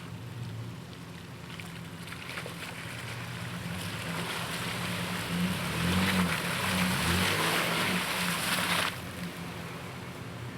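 A 4x4 truck's engine revving as it drives through a mud puddle, with muddy water splashing and spraying. The splashing builds up over a few seconds and then cuts off suddenly.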